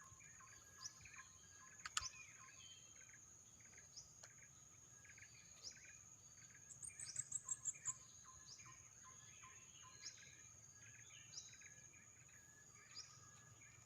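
Faint outdoor birdsong: many short chirps, with a quick run of about eight high notes around the middle, over a steady high-pitched insect drone.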